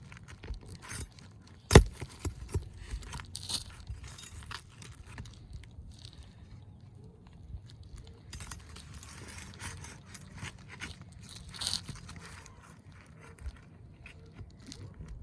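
Irregular scraping, crunching and small clicks of a tool working at asphalt roof shingles, loosening them to reach the nails beneath, with one sharp knock about two seconds in.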